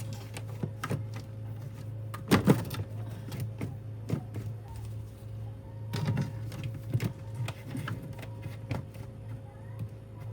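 A small electric motor running with a steady low hum, with repeated clicks and knocks over it, the loudest about two and a half seconds in.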